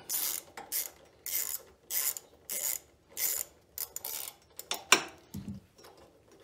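Ratchet wrench with a 10 mm socket backing off a nut on a generator's air cleaner mount, in a run of short ratcheting strokes close to two a second. Near the end there is a sharp click and a low knock.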